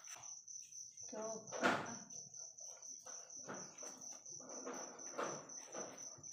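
Crickets chirping in a steady high trill throughout, while a kitchen knife cuts through the rind and fibrous flesh of a ripe jackfruit in a series of short cutting sounds, the loudest about a second and a half in.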